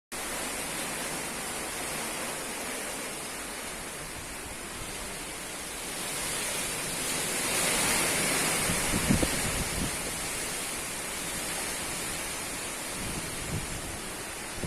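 Strong wind blowing steadily, swelling into a louder gust about halfway through, with low rumbling buffets of wind on the microphone around the gust's peak.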